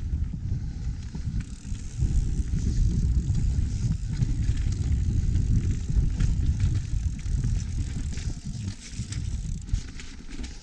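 Mountain bike riding down a dirt and root singletrack: a steady low rumble of tyres on the trail, with scattered sharp rattles and clicks from the bike. It gets louder about two seconds in.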